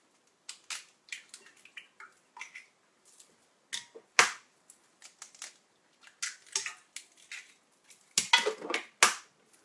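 Eggs being cracked open over a stainless steel stand-mixer bowl: a series of sharp cracks and clicks. The loudest comes about four seconds in, and two more come close together near the end.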